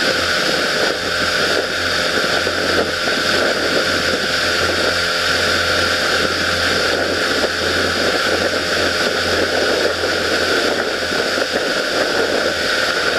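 Pontoon boat's motor running steadily under way at speed, a constant low drone under a loud rush of water and wind.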